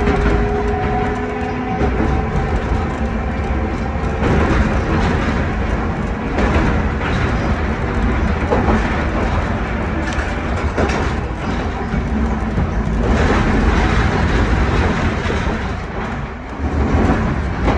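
A 1928 Kawasaki-built wooden tram with nose-suspended traction motors running along the track: a steady low rumble with a motor whine that fades out within the first two seconds, and scattered clacks as the wheels pass over rail joints.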